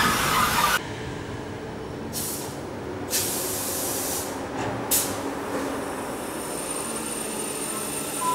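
Passenger coaches rolling past, cut off abruptly just under a second in. Then electric locomotives standing at a station platform: a low steady hum, two bursts of air hissing from the brakes about two and three seconds in, a sharp click about five seconds in, and a thin high whine in the last couple of seconds.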